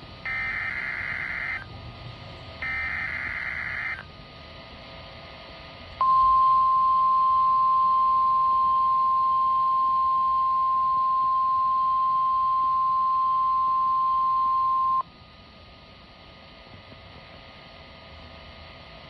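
NOAA Weather Radio weekly test signal. It begins with the last two of the three SAME (Specific Area Message Encoding) digital header bursts, each about a second of buzzy data warble. After a short pause comes the 1050 Hz weather-radio warning alarm tone, one steady high tone held for about nine seconds that cuts off suddenly, and then faint radio hiss.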